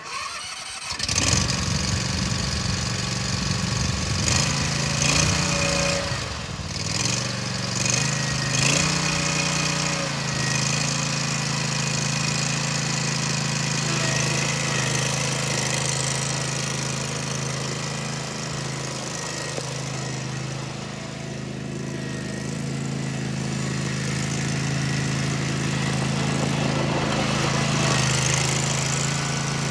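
Zero-turn mower's 24 hp Kawasaki FR730V V-twin gas engine running. Its speed shifts up and down several times in the first ten seconds, then it runs steadily.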